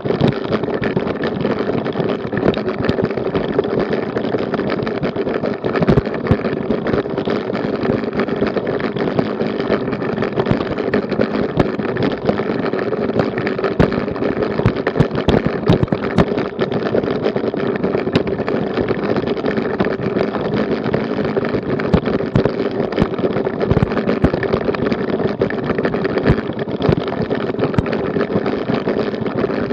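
A bicycle and its handlebar-mounted action camera rattling and vibrating over cobblestones: a continuous jolting clatter with many rapid small knocks over a steady buzz.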